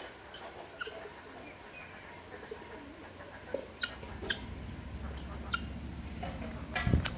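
Birds calling, with short scattered chirps. A low rumble comes in about halfway through, and there is a loud thump near the end.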